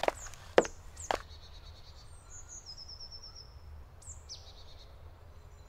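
Three sharp knocks about half a second apart in the first second or so, then songbirds in woodland: a quick run of repeated high notes and short downward-sweeping calls over a steady low rumble.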